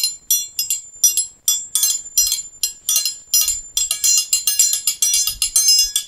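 Metal triangle struck with a metal beater in a steady forró rhythm, bright ringing hits about four a second that get busier about four seconds in.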